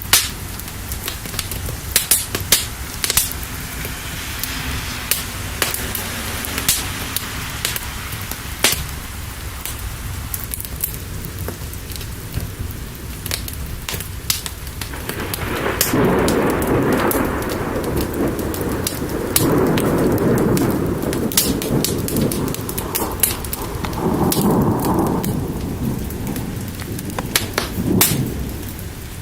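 Steady rain with sharp crackles throughout, typical of a wood fire. From about halfway in, thunder rumbles in three rolling waves.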